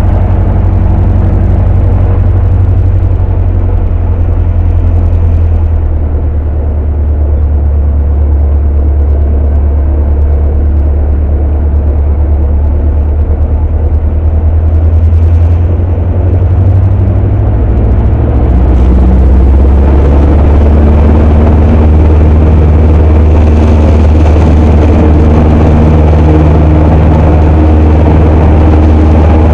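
A Cessna 152's Lycoming O-235 four-cylinder engine and propeller running, heard from inside the cabin as a loud, steady low drone. About 19 seconds in, the note changes and grows a little louder as power comes up for the takeoff roll.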